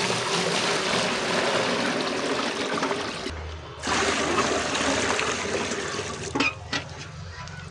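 Water poured from a container into an empty plastic crate, splashing onto its plastic floor. The pour stops briefly about three seconds in, starts again, and thins to a weaker splash near the end.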